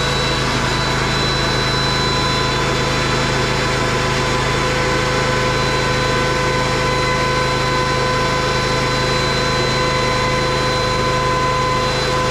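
Electric benchtop thickness planer running steadily at full speed, its motor and cutterhead giving a steady whine.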